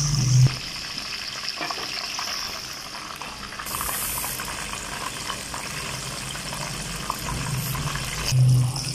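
Breaded chicken pieces deep-frying in hot oil, the oil bubbling and sizzling steadily as the pieces finish cooking.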